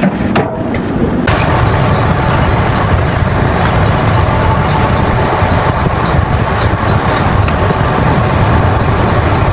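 Heavy mining machinery running: a loud, steady rumble and grinding, with faint regular ticks about twice a second.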